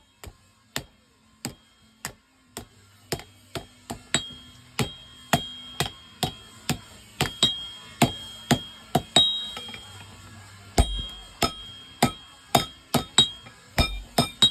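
Blacksmith's hammer striking metal on an anvil in a steady rhythm of about two to three blows a second, each blow ringing briefly.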